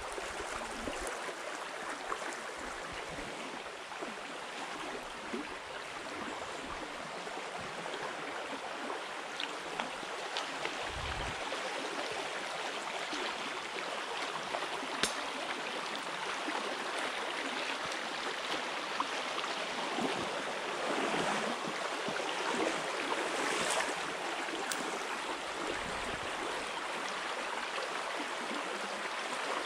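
Small shallow stream running over a gravel riffle, a steady rush of water, with a few sharp clicks and two or three short low thumps.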